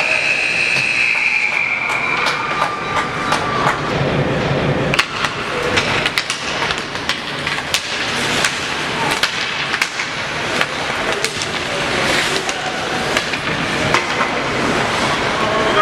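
Ice hockey play in a rink heard from the stands: a steady scraping rumble of skates on the ice, cut by many sharp clacks of sticks and puck. A high steady tone sounds for about the first two seconds.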